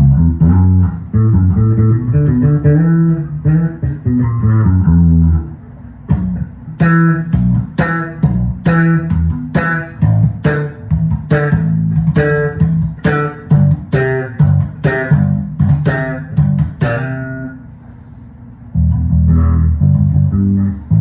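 Electric bass guitar played through an Ampeg RB-108 bass combo amp. It starts with held low notes for about five seconds, then a run of short, sharply plucked notes with bright attacks, and returns to held low notes near the end.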